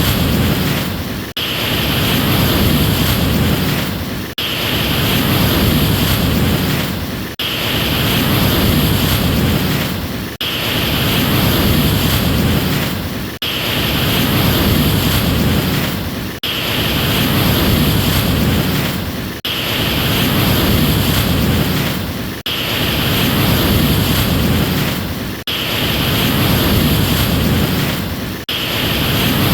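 Rushing ocean surf with no tones in it, repeating about every three seconds with a sudden short drop-out between repeats, like a short wave recording played on a loop.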